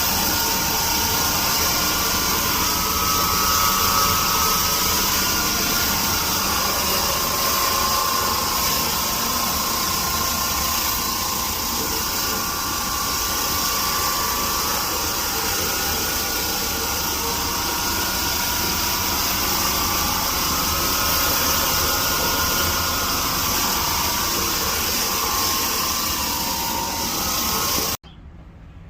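Tile-and-grout floor-cleaning machine running steadily, with a strong hiss over a low rumble and a slightly wavering whine. It cuts off suddenly near the end.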